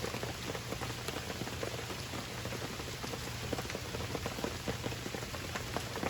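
Steady rain falling, with many small drops pattering close by over an even hiss.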